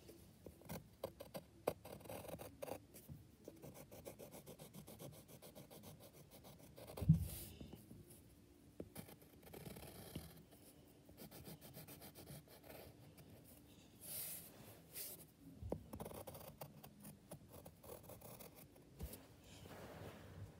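Pencil scratching on paper in many short, faint strokes as a drawing is sketched, with one soft thump about a third of the way in.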